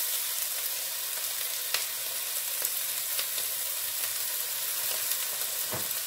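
Kimchi fried rice sizzling steadily in a hot aluminium wok as spoonfuls of kimchi juice go in, with a few light clicks.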